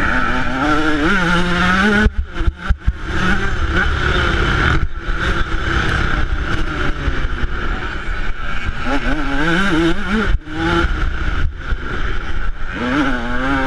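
2008 Yamaha YZ125's single-cylinder two-stroke engine ridden hard, revving up and falling off again and again as the throttle is worked. The sound drops out sharply for a moment a few times.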